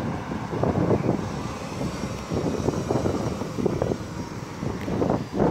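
Three-axle intercity bus's engine running as the bus passes close by and pulls away through a turn, a steady rumble with wind buffeting the microphone.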